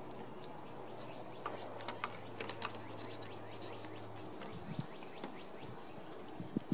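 One-handed bar clamps being tightened on a wooden fence board: scattered short clicks of the trigger ratcheting the jaw, a cluster in the first half and a few more near the end.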